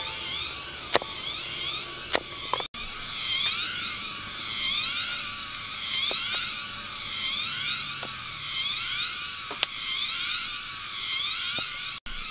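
A loud, steady forest insect chorus: a high buzz with a call that rises and falls about once a second. Over it come a few sharp taps of a knife blade striking a wooden chopping stump.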